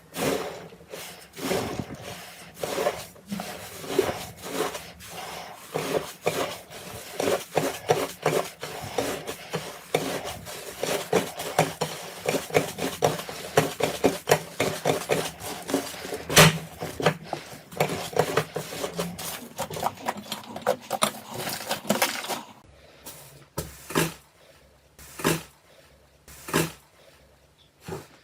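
Slime being squished and pressed by hand: a dense run of small clicks and pops. After about 22 seconds it thins to a handful of separate, louder pops.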